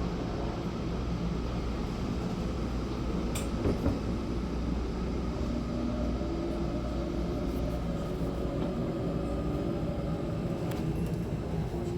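Running noise in the gangway between two cars of a Taiwan High Speed Rail train: a steady low rumble and hum, with a sharp knock about three and a half seconds in and a few faint clicks near the end.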